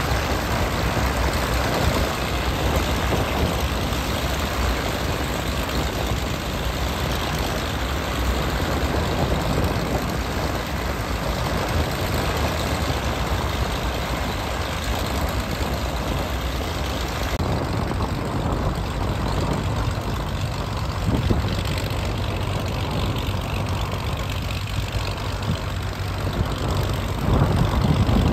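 Twin-engine Beechcraft Baron's piston engines idling steadily with the propellers turning. The sound grows louder at the very end as the plane taxis past.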